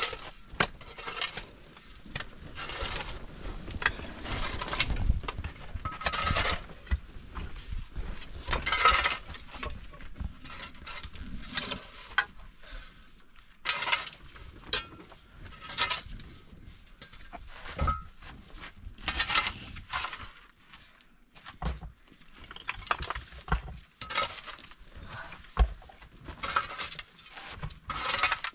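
Long-handled shovel scraping and scooping dry earth and small stones off a dirt floor, in repeated strokes every two to three seconds.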